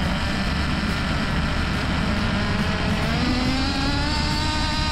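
Tiny 3.5 cc two-stroke nitro model engine driving a bicycle at full throttle, a high engine whine that climbs in pitch about three seconds in as it revs up and the bike gathers speed.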